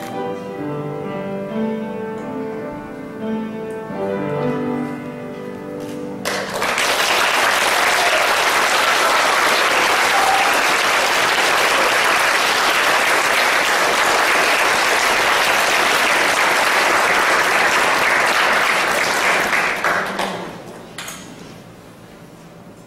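A small ensemble of flute, violins and piano plays the closing notes of a piece. About six seconds in, the audience breaks into applause, which runs steadily for some fourteen seconds and then dies away near the end.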